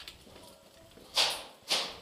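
Two footsteps crunching on a concrete floor strewn with grit and debris, about half a second apart, in the second half.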